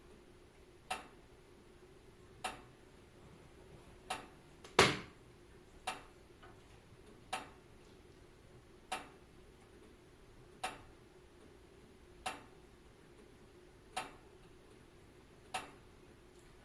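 Fireplace fire crackling: sharp, short pops at an even pace of about one every second and a half over a faint steady hum, with one louder pop about five seconds in.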